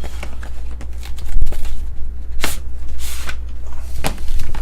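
Cardboard and plastic packaging handled by hand while a box of signed photographs is opened, giving a series of sharp clicks and short rustles over a steady low electrical hum.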